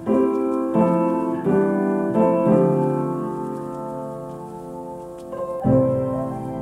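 Background piano music: chords struck every half second or so, then one held chord that slowly fades before a new chord comes in near the end.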